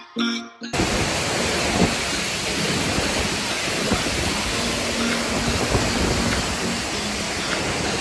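Short plucked background music cuts off under a second in. It gives way to a steady, loud roar of a waterfall heard from close up inside its narrow rock chamber.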